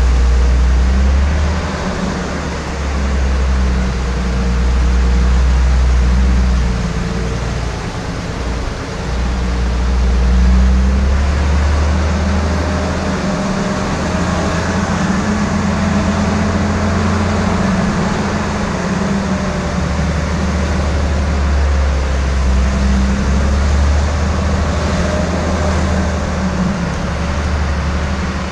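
Jeep CJ5 engine running at low speed while the Jeep drives slowly over gravel, its note wavering a little with the throttle.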